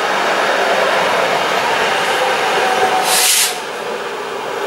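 Newag Impuls 36WEa electric multiple unit running past and moving away, a steady rumble of wheels on rail with a faint whine. A brief sharp hiss about three seconds in, after which the sound drops as the tail of the train goes by.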